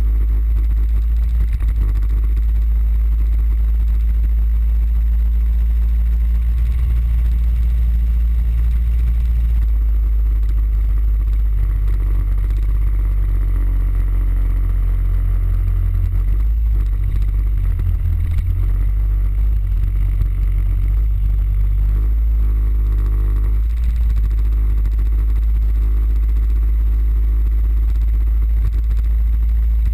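Suzuki Burgman 650 scooter's parallel-twin engine running steadily under way, with heavy wind rumble on the microphone. The engine note shifts a few times as the scooter's speed changes.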